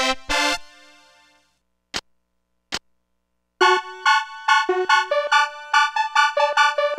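Casio SA-10 mini keyboard playing a few notes that fade out over about a second and a half. Two short clicks come in the gap, then a quick run of bright electronic notes starts about three and a half seconds in, about three notes a second.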